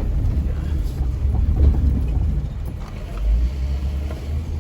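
Jeep Wrangler driving on a dirt trail, a steady low rumble of engine and tyres.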